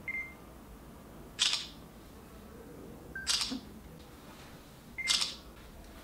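Smartphone camera shutter sounding three times, about two seconds apart, with short high beeps before some of the shots.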